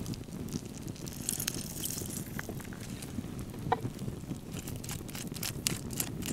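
Wood fire crackling, with scattered sharp pops over a low steady rumble, and the wet squish and drip of a lime half being squeezed by hand.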